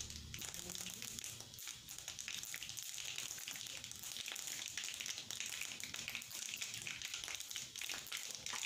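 Whole spice seeds spluttering and crackling in hot oil in a steel kadai, a dense run of tiny pops: the tempering stage, seeds fried in oil before the vegetables go in.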